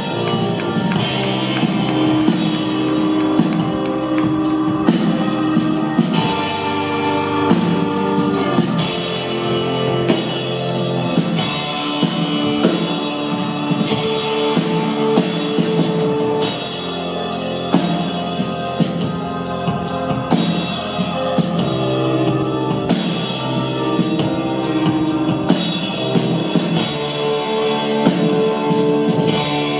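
Live band playing an instrumental passage of a song, with a drum kit keeping a steady beat under guitar and other pitched instruments, and no singing.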